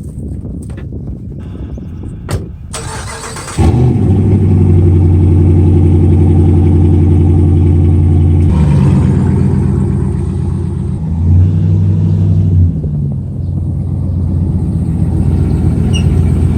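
Pickup truck engine cranking briefly and catching about three and a half seconds in, then running loudly and steadily, with its pitch shifting a couple of times as the revs change.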